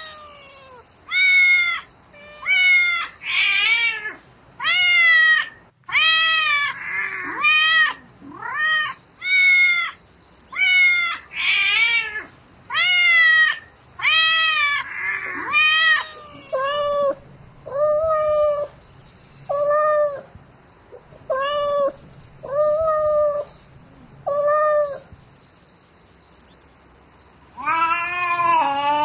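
A cat meowing over and over, about one call a second, each call rising and falling in pitch. About halfway through the calls turn lower and quieter, then stop briefly, and a louder, longer yowl comes near the end. A cat calling for a mate.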